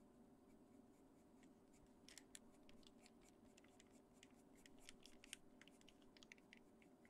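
Faint scratching of a Caran d'Ache Pablo coloured pencil on paper, short quick strokes laying in small feathers, starting about two seconds in. A low steady hum sits underneath.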